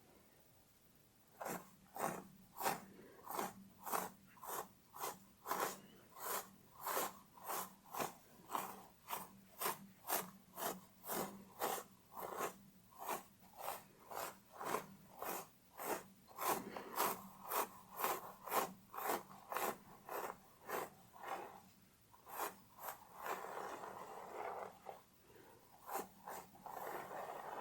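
Fingernails scratching through hair on a scalp in quick, even strokes, about two to three a second, then two longer slower rubbing passes near the end.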